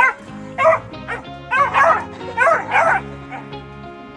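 A dog barking in a quick series of short, high barks during the first three seconds, over background music.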